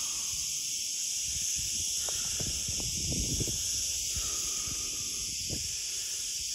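Cicadas buzzing in a steady, high-pitched chorus, with an irregular low rumble on the microphone underneath.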